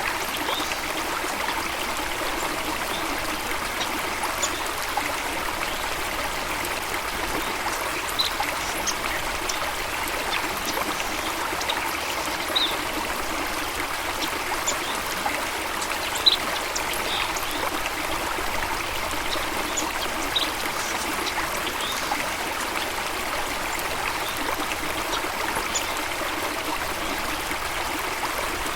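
Water flowing steadily in a stream or small waterfall, an even rushing and trickling. Brief high plinks stand out every few seconds, the clearest about 16 seconds in.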